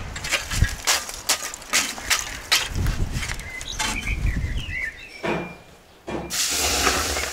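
A long-handled scraper rakes and knocks through hot coals in a clay tandoor, a quick run of scrapes and clicks. About six seconds in, water poured into the hot tandoor starts a sudden loud hiss of steam.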